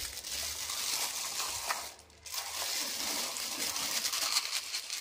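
A thin plastic bag crinkling as the last of the chana dal is poured from it into a plastic spice-box compartment. There is a brief pause about two seconds in.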